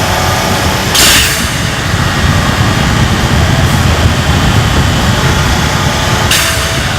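Nissan GT-R's twin-turbo 3.8-litre V6 running under way, with two short, sharp hisses of air from Go Fast Bits T9202 blow-off valves with standard trumpets venting boost as the throttle closes: one about a second in, the louder, and another near the end.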